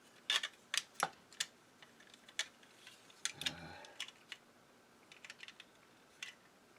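Hard plastic toy parts clicking and tapping as they are handled and tried against each other, in scattered irregular clicks, a few close together near the start and middle and fainter ones later.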